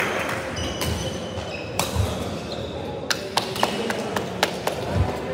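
Badminton doubles rally: sharp racket strikes on the shuttlecock, several in quick succession, with short shoe squeaks on the wooden court floor and a couple of dull footfall thuds.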